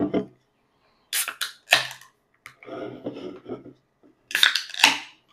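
Two carbonated energy drink cans cracked open one after the other, each tab pop followed by a short hiss of escaping gas: the first about a second in, the second near the end.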